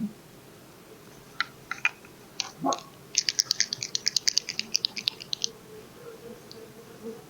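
Queen-marking paint pen being shaken, its mixing ball rattling in quick, even clicks, about six a second for a couple of seconds, after a few single clicks as the pen is taken out and handled.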